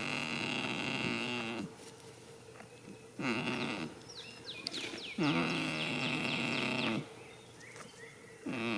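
A goat snoring in its sleep: a loud, pitched snore roughly every two to three seconds, four in all.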